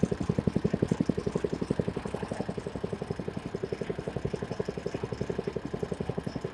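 Sugarcane juice crusher's engine running steadily, with a rapid, even chugging of about nine beats a second.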